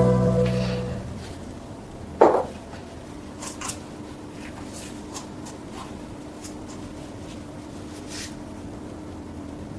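Background music fades out, then one sharp clank of a metal part set down or struck, with a short ring, about two seconds in. Faint handling clicks and a low steady hum follow.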